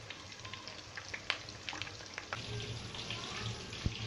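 Whole quail deep-frying in hot oil with curry leaves: a steady sizzle with many scattered sharp crackles and pops, and a light knock near the end.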